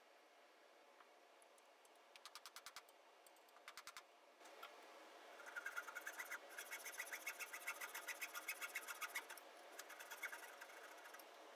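Fine-toothed saw cutting into the end of a red oak hammer handle, in quick rasping strokes about five a second. The strokes come in short runs at first and then in a longer steady run from about five seconds in. The cut is a slot for the handle's wedge.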